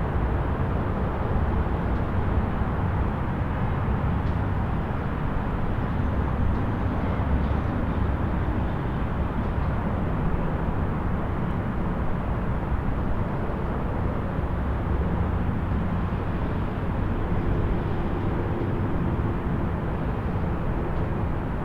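Distant highway traffic: a steady low rumble and hiss of many vehicles passing, with no single car standing out.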